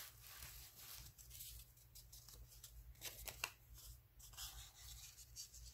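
Faint rustling of paper scraps being handled and sorted, with a few soft clicks around the middle, over a low room hum.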